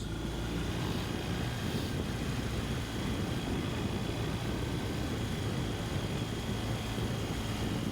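Steady wind rush and road noise on a helmet-mounted microphone while riding a BMW R 1250 GS, with the bike's boxer-twin engine as a steady low hum underneath.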